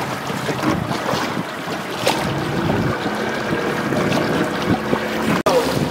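Motor boat under way: a steady engine hum under the rush of wind on the microphone and water along the hull. The sound cuts out for an instant near the end.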